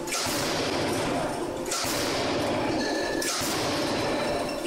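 HUTA closed die forging hammer, converted to full hydraulic drive, striking the die three times about a second and a half apart, each heavy blow followed by a metallic ring, over a steady rushing noise.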